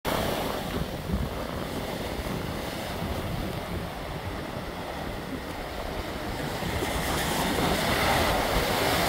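Sea surf breaking and washing up on the shore in a steady rush, with wind buffeting the microphone; a bigger wave breaks and swells louder near the end.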